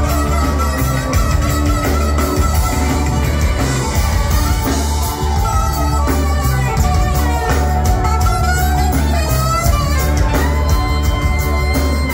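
A rock band playing live and loud through a club PA: drums, electric guitars and keyboards, with a saxophone carrying a melody line over the top.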